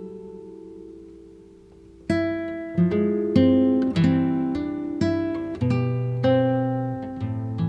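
Acoustic guitar music: a chord rings out and fades, then from about two seconds in a run of plucked notes and chords, each ringing and dying away.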